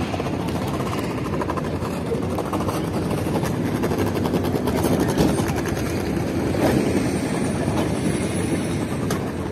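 KTM-5 (71-605) tram standing at a stop with its doors open: a steady low rumble from its running equipment. A fast clicking comes in between about one and four seconds in, and a faint rising whine sounds near the end.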